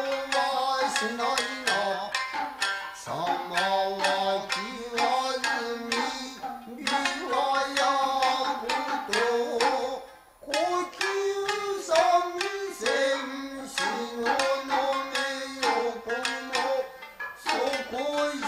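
Japanese traditional dance music: shamisen plucking under a sung melody, with sharp percussive strikes. The music pauses briefly about ten seconds in, then resumes.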